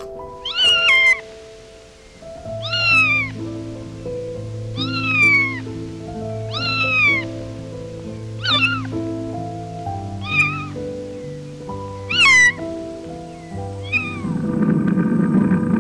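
A cat meowing over and over, about every two seconds, each meow falling in pitch, over background music.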